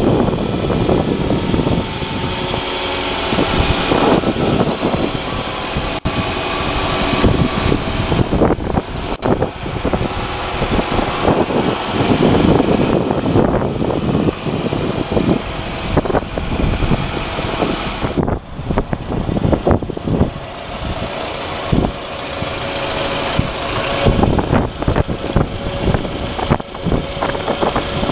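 2010 Scion tC's 2.4-litre four-cylinder engine idling under the open hood, heavily buffeted by wind noise on the microphone that comes and goes in gusts.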